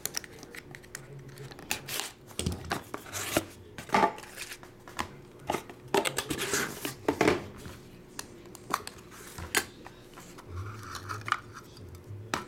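A utility knife slicing open a sealed trading-card box, then cardboard tearing and the scraping and clicking of a clear plastic card case being taken out and opened, in irregular sharp strokes.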